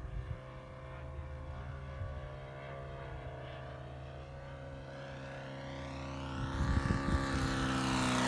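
Magnum .90 four-stroke glow engine of an RC plane running steadily at high throttle in flight, faint while the plane is distant and growing louder over the last couple of seconds as it comes in low. Some wind buffeting on the microphone about two-thirds of the way in.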